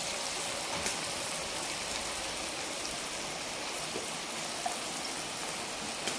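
A steady, even hiss with a few faint clicks scattered through it.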